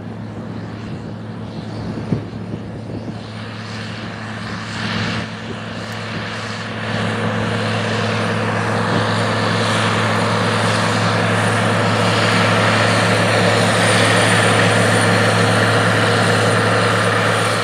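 John Deere 9520 tractor's six-cylinder diesel engine running steadily under heavy load, pulling a tillage implement through soil. It grows louder from about seven seconds in as the tractor comes closer.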